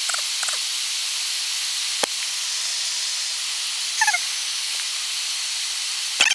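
Steady high hiss of Airbus A320 flight-deck background noise during the approach, with a single sharp click about two seconds in and a brief falling chirp about four seconds in.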